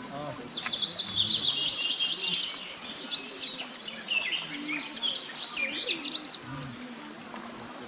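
Several birds chirping and calling at once: quick high chirps and short trills overlapping, over a faint steady hiss.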